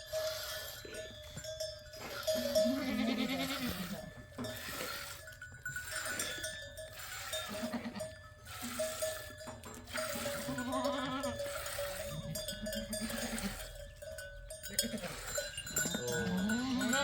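Bells on livestock ringing again and again, with animals bleating now and then, several calls in all, one rising near the end.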